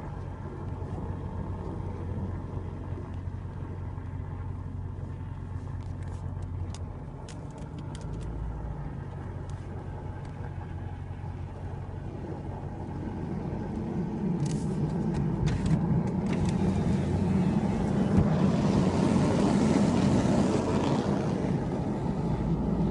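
A car's engine running with a steady low hum. It grows louder from about halfway through, and a broad hiss joins it near the end.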